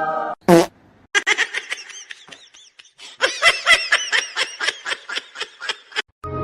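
High-pitched laughter in two runs of quick giggles, after a brief loud falling squeal about half a second in.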